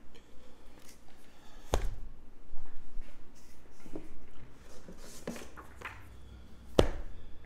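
Comic books being handled and stacked on a table: light paper rustling with two sharp knocks, one about two seconds in and a louder one near the end.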